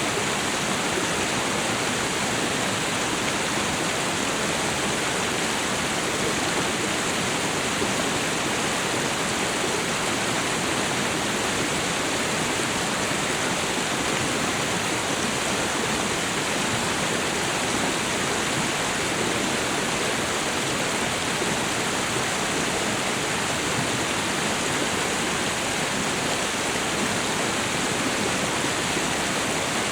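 Waterfall and river water rushing in a steady, even roar of noise with no breaks or changes.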